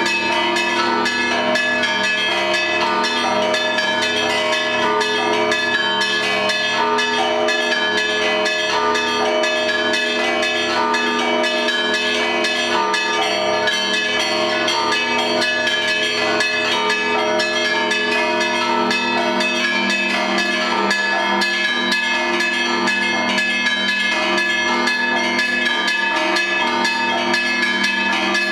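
Russian Orthodox monastery bells ringing: many bells of different pitches struck in quick succession, their tones overlapping in a continuous, even-level ringing.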